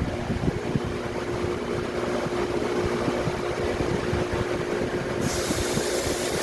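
Sandblasting equipment running with a steady hum and low rumble; about five seconds in, a high air hiss starts suddenly as the blast air comes on.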